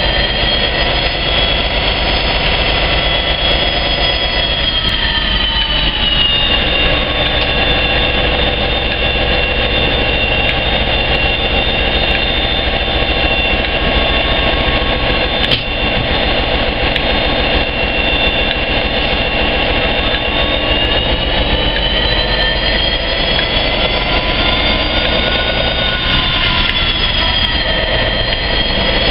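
A Class 57 diesel locomotive and a Pendolino train standing close together, running steadily with a low rumble and a high whine that sinks in pitch about six seconds in and rises again after about twenty seconds. A single sharp knock comes about halfway through.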